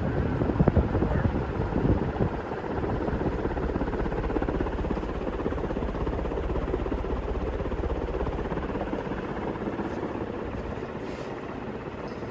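Heavy-bladed 56-inch industrial ceiling fan with a cast Contech motor running at high speed: a steady rush of air from the spinning blades, louder and gustier for the first two seconds.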